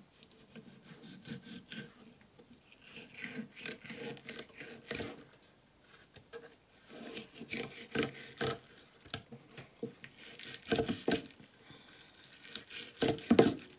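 A kitchen knife skinning a raw fish fillet on a wooden cutting board, with irregular scraping and rubbing strokes as the blade works between skin and flesh. A few sharper knocks come near the end.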